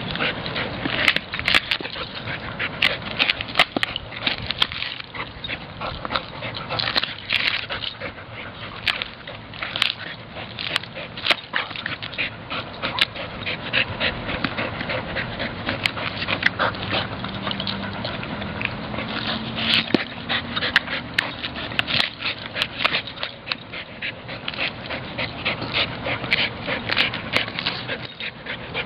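Entlebucher mountain dog tearing at and chewing a coconut's fibrous husk and shell: a continuous run of irregular sharp cracks, crunches and ripping, with the dog panting.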